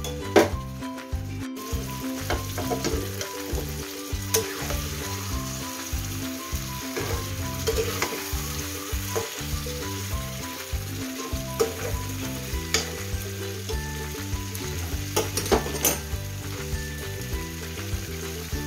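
Chicken pieces sizzling in oily masala in an aluminium kadai while a metal spatula stirs them, scraping and knocking against the pan several times. Soft background music runs underneath.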